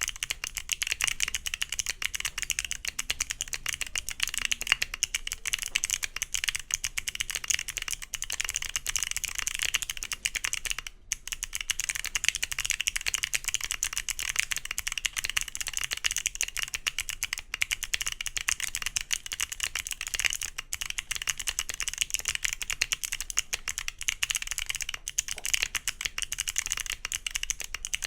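Continuous fast typing on a mechanical keyboard fitted with Wuque Studio BigLucky clicky switches on a polypropylene (PP) plate: a dense run of sharp, crisp key clicks, broken by a brief pause about eleven seconds in.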